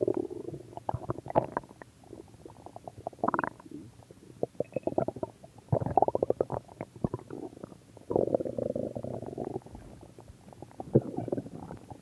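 A person's stomach growling: irregular gurgles and short pops, with a longer rumble lasting about a second and a half some eight seconds in.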